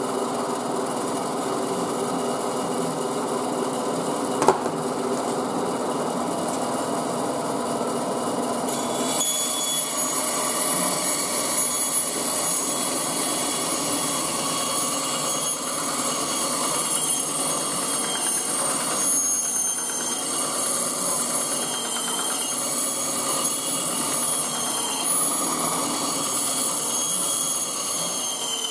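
Ryobi benchtop band saw running steadily, with one sharp knock about four seconds in. From about nine seconds in, the blade is cutting through a rack of ribs, adding a high whine and hiss over the motor.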